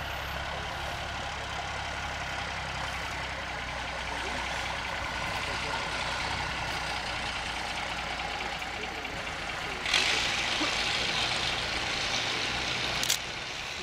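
Steam donkey engine at rest, with a steady low hum under a constant hiss of steam. About ten seconds in, a louder rush of steam starts suddenly, lasts about three seconds and cuts off sharply.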